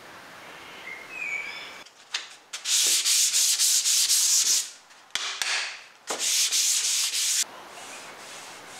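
Hand sanding a wooden tabletop with a 300-grit sanding sponge, rubbing back the cured polyurethane between coats. It comes in two loud spells of quick back-and-forth strokes, starting about two seconds in, with a brief pause around the middle.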